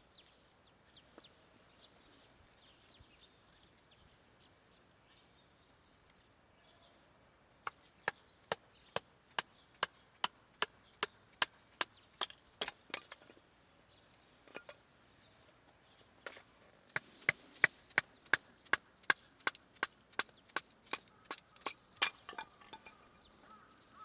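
Batoning firewood: a knife blade driven down through a piece of wood by sharp repeated strikes on its spine, about three a second, in two runs with a pause between.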